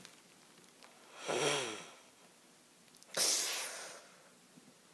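A person snoring: a voiced, wavering in-breath about a second in, then a long hissing out-breath about three seconds in.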